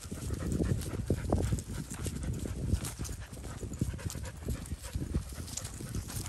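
Footsteps and leash and handling rustle while walking on grass, irregular low thumps, with a goldendoodle panting in the heat.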